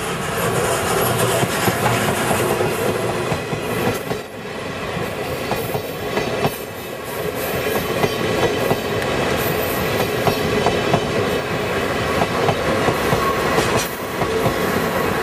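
C61 steam locomotive and its train of vintage passenger coaches rolling past at low speed, wheels clacking over the rail joints with some wheel squeal. A quiet arrival, without loud exhaust chuffing, as the train comes into the station.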